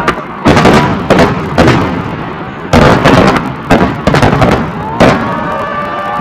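Aerial firework shells bursting in quick succession, a string of loud booms with crackling between them. A thin whistling tone joins about five seconds in.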